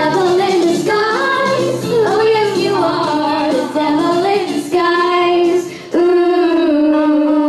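A group of young girls singing a song together into handheld microphones, ending on one long held note from about six seconds in.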